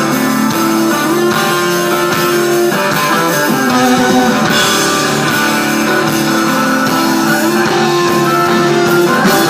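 Rock band playing live: an instrumental passage led by electric guitar, with drums behind it and no singing.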